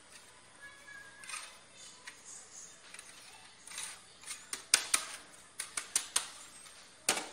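Metal box grater: a few soft scrapes of mozzarella against the grating holes, then, from about halfway in, a quick series of sharp knocks as the grater is tapped over the glass dish to shake the cheese free, with one more loud knock near the end.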